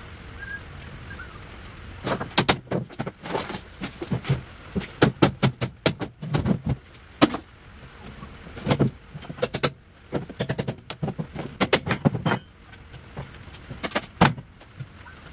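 Plywood being pried and knocked off a steel trailer frame: irregular sharp knocks, clanks and clatter of tool, wood and metal, starting about two seconds in.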